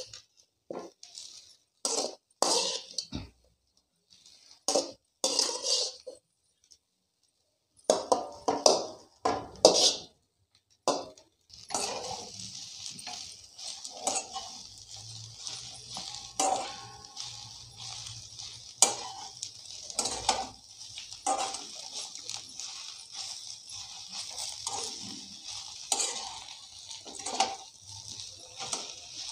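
Spoon and spatula scraping and knocking against a steel bowl and a frying pan as moringa (drumstick) leaves are tipped in and stirred through the spice mix, with short pauses. From about twelve seconds in a steady frying sizzle runs under the stirring.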